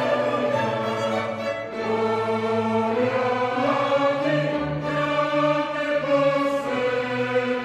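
Choir singing a Christmas carol in long held chords, with instrumental accompaniment.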